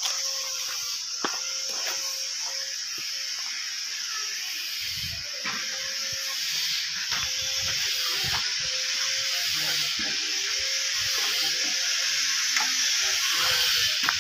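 Steady high-pitched drone of insects, with irregular low thumps and rustles starting about five seconds in.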